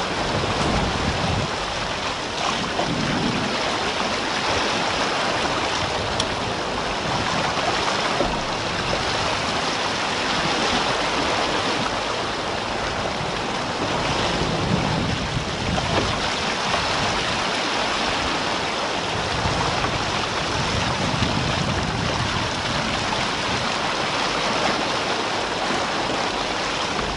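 Water rushing and splashing along the hull of a Jeanneau Sun Fast 3200 sailing yacht under way at about 13 km/h: a steady hiss that swells and eases as the bow meets the waves.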